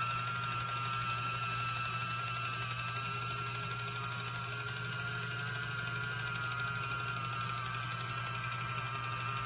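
Kitchen Mama One Touch battery-powered electric can opener running steadily, its small motor giving a constant whine as it drives itself around the rim of the can, cutting the lid open.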